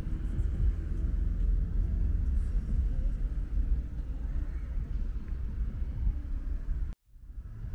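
Wind buffeting the microphone in an uneven low rumble, mixed with traffic on the road alongside. About seven seconds in, the sound cuts out suddenly and fades back in.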